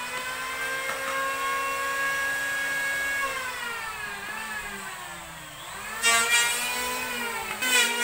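Small motor running with a steady whine. Its pitch sags about three seconds in and climbs back about six seconds in, with rasping hissy bursts near the end.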